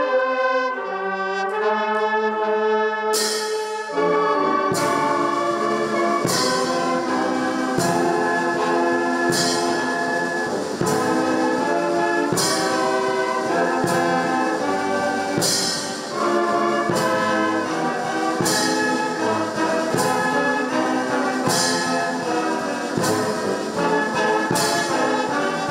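Brass band music: held brass chords at first, then a steady beat of percussion strokes joins about four seconds in, landing roughly every second and a half.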